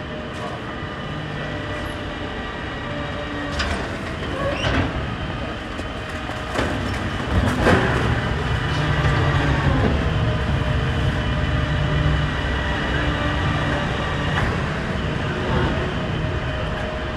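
A train running: a steady rumble and whine with a few sharp clacks, growing louder about seven seconds in.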